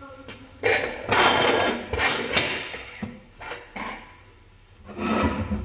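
Handling noise from stainless steel potato ricer parts being moved on a wooden tabletop: a long scraping, rubbing stretch followed by two shorter scrapes.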